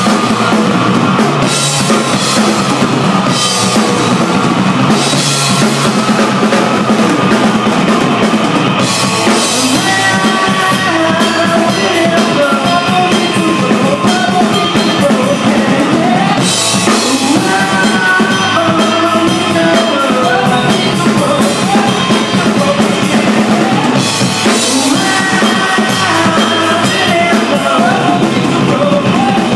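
Live rock band playing: a drum kit with bass drum, snare and recurring cymbal crashes drives the song, and a melodic line rises and falls over it from about a third of the way in.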